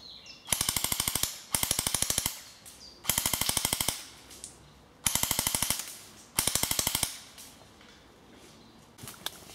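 Airsoft rifle firing five rapid full-auto bursts, each under a second long, with short pauses between them.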